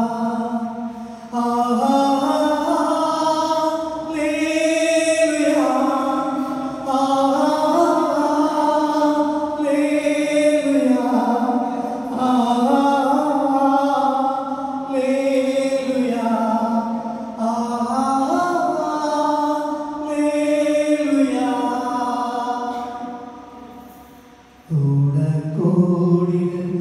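A man singing unaccompanied into a microphone through a PA in a chant-like style. He holds long notes that slide between pitches, in phrases a few seconds long with short breaks between them. The last phrase fades away, and a lower phrase begins near the end.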